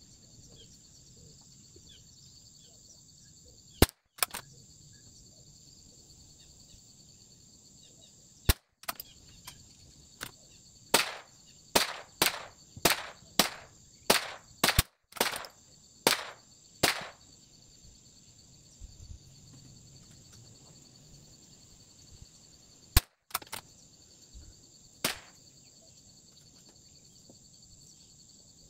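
.22LR rimfire rifle shots, single sharp cracks several seconds apart, with a quicker string of about nine reports in the middle. A steady high-pitched drone runs underneath.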